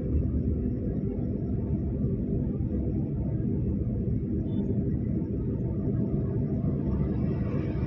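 Steady low drone of a car's engine and tyre noise, heard from inside the cabin while driving at highway speed.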